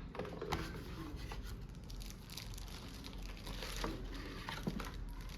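Packaging being handled and pulled off the coffee machine: crinkling and rustling, with a few sharp knocks.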